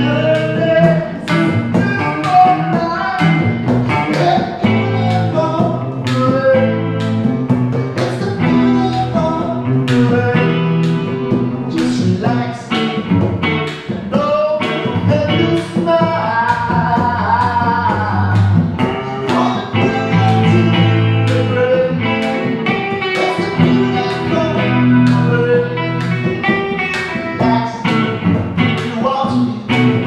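An acoustic guitar strummed in a steady rhythm with an electric guitar playing along, and a man singing over them.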